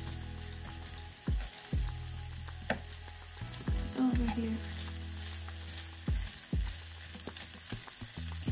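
Sliced smoked sausage sizzling in a nonstick skillet while a plastic slotted spatula stirs and turns it. The spatula knocks and scrapes against the pan every second or so.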